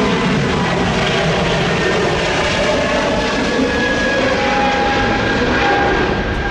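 Airbus A220-100's Pratt & Whitney PW1500G geared turbofans at takeoff power during the climb-out: a loud, steady roar with thin whining tones running through it.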